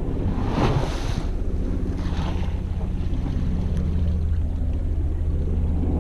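Steady low wind rumble on the microphone, with waves washing against a rocky shoreline.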